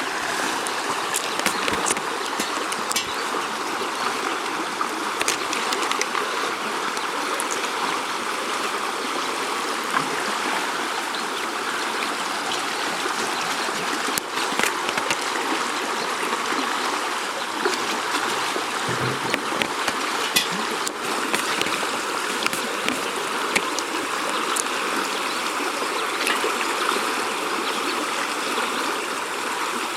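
Steady rush of a flowing river, with scattered small ticks and taps over it.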